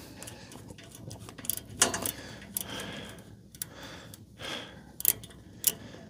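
Screwdriver backing a small screw out of the outlet pressure tap of a gas valve: faint, irregular metal clicks and ticks, with a few louder knocks.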